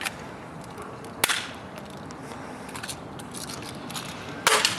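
A single sharp snap of a BB gun firing about a second in, over steady background hiss. A brief louder noise follows near the end.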